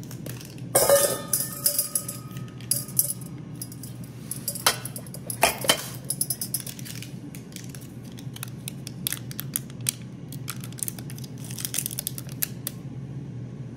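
Spoon and jars clattering and clinking as a marinade is prepared: a loud clatter with a brief ring about a second in, a few more knocks, then a run of lighter taps and clicks that stops near the end.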